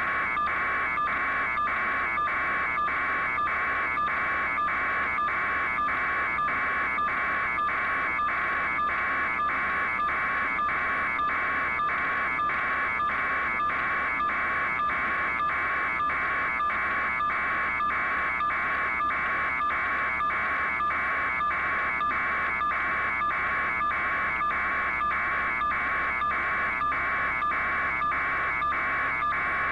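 A steady electronic buzzing tone that pulses evenly about twice a second, unchanging in loudness throughout.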